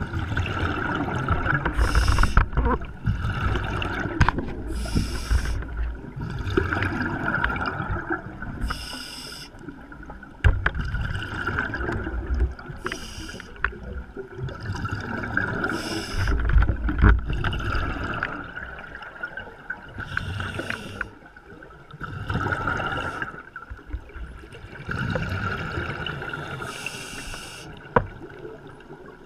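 Scuba diver breathing underwater through a regulator: a short hissing inhale alternating with bubbling exhales, about one breath every three to four seconds.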